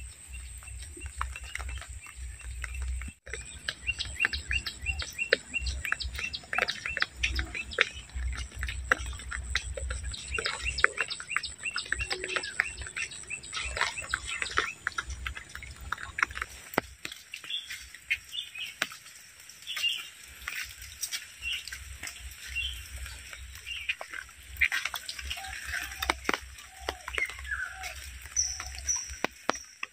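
Birds chirping and calling: many quick chirps in the first half, thinning to separate calls in the second half, with a low rumble underneath during the first half.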